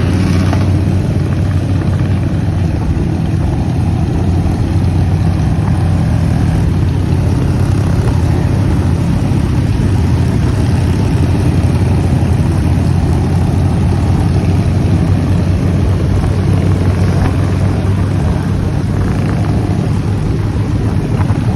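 A vehicle engine running with a steady, low drone and a rushing noise over it.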